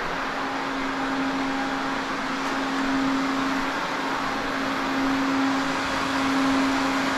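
Steady electric machine noise: an even rushing of air over a constant low hum, with a fainter higher tone above it.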